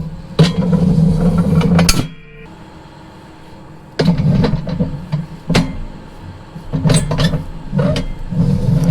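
Tractor engine loading up in repeated bursts as its hydraulics fold in a hay rake, with sharp clanks and knocks from the rake's steel frame, easing off for a couple of seconds in between.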